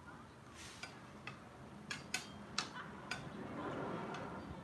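A metal griddle spatula clinking against a ceramic plate as pasta is arranged: four sharp clicks about two to three seconds in, then a softer scraping.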